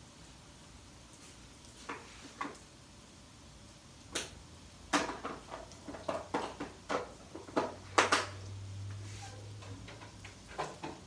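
Irregular sharp knocks and clatters of items being handled and set down, a few at first, then thick from about four to eight seconds in, with two more near the end. A low hum joins briefly about eight seconds in.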